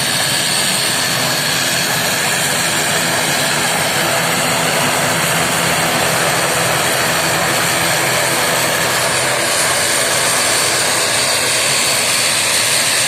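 Airliner engines running loudly and steadily during a departure, with a high whine over a dense rush of noise. There is a slight change in the high whine about nine seconds in.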